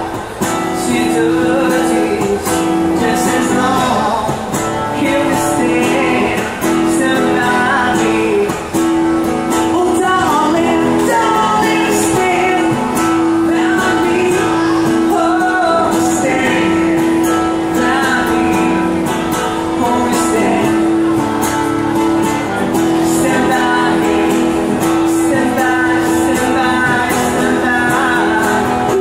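A man singing a rock cover into a microphone over a strummed acoustic guitar, with a steady low note held underneath.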